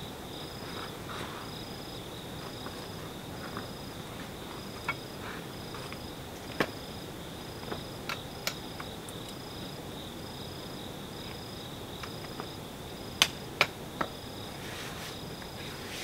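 Crickets and other insects chirping steadily, with one high pulsing call repeating evenly about twice a second. A few sharp clicks and knocks come through now and then, the loudest cluster near the end.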